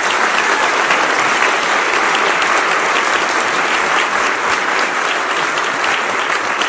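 Large audience applauding, a dense steady clapping that runs on without a break.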